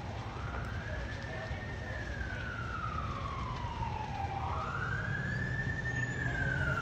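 Emergency vehicle siren on a slow wail, one tone rising and falling and then rising again about four seconds in, growing slightly louder, over a low steady rumble.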